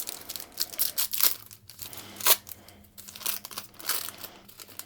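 Wax paper wrapper of a basketball card pack crinkling and tearing as it is opened, an irregular run of sharp crackles.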